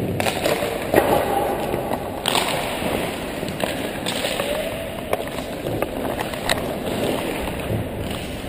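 Ice hockey warm-up on the rink surface: skate blades scraping and hissing on the ice, with several sharp knocks of pucks struck by sticks or hitting the boards, the loudest about a second in.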